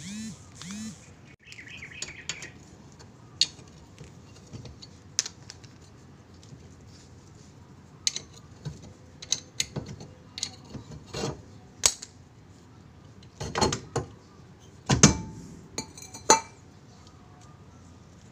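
Scattered metallic clanks and knocks as a car's rear brake drum is worked loose and pulled off the hub. They are loudest and closest together about three-quarters of the way through.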